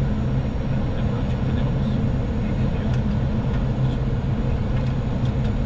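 Boeing 737-700 flight-deck noise on final approach with landing flaps set: a steady rush of air and a low engine hum, with a few faint ticks.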